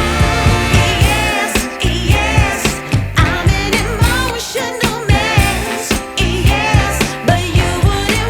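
Background music: a song with a wavering, vibrato-laden vocal melody over a steady beat.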